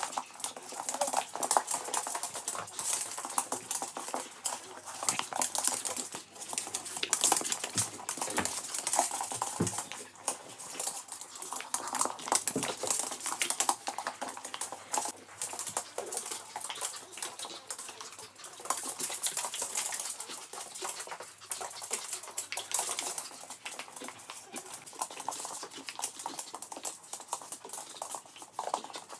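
Two West Highland white terriers play-fighting on a hard floor: rapid, irregular clicking and scrabbling of claws with scuffling of bodies.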